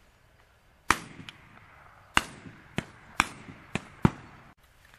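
Shotgun reports during a dove hunt: about six sharp shots in quick succession over some three seconds, four loud and two fainter, each with a trailing tail. The sound cuts off suddenly near the end.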